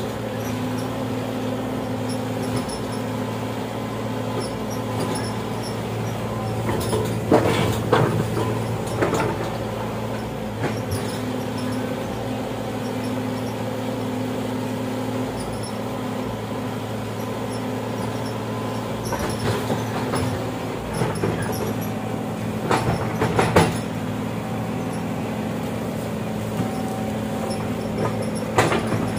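Excavator diesel engine running steadily, with a few short metallic clanks and knocks in two clusters partway through and near the end.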